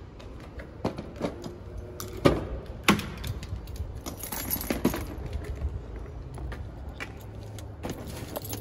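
A string of sharp clicks and knocks over a low steady rumble: a car door being opened and a plastic pet carrier being handled and set on the seat. The loudest knocks come about two and three seconds in.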